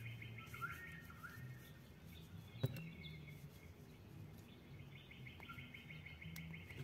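Faint bird chirps with a rapid pulsed trill that drops out and returns near the end, over a low hum, with a single sharp click about 2.7 s in.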